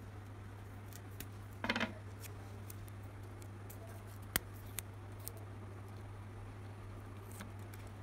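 Small clicks and taps of plastic parts being handled and pressed into a speaker housing, over a steady low electrical hum. A short buzz comes a little under two seconds in, and a single sharp click about four seconds in.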